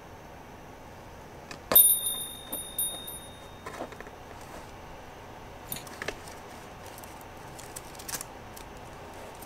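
A small bell rings about two seconds in, struck several times in quick succession and ringing out for almost two seconds. This is followed by scattered light clicks and taps as a hamster pushes through a small hinged flap door and steps out.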